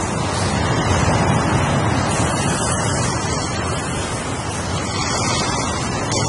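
Ocean surf: waves breaking and washing in as a steady rush of noise, swelling slightly in level a second or so in.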